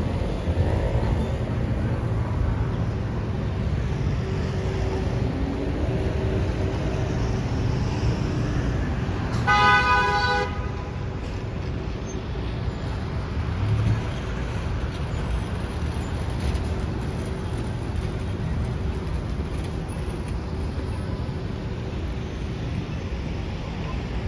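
City street traffic noise with a steady engine and tyre rumble. A vehicle horn honks once, a single blast of about a second, near the middle.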